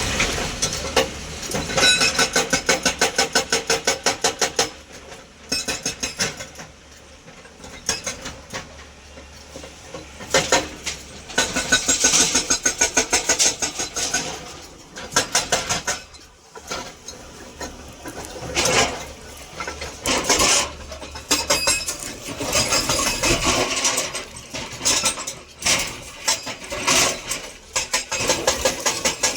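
Heavy quarry machinery working over a running engine: bursts of rapid, evenly spaced metallic knocking lasting a few seconds each, with quieter pauses between them.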